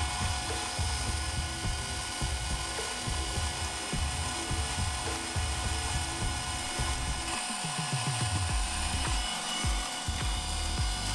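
Shinko Seiki VP152J22 water-sealed (liquid-ring) vacuum pump and its electric motor running steadily, with a constant whine, under background music.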